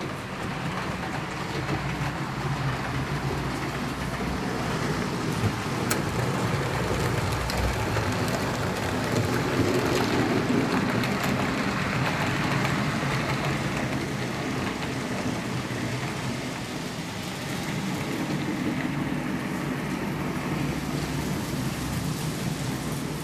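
HO-scale model train running along the layout's track, a steady rolling rattle with scattered clicks that grows louder toward the middle and then eases off as it passes.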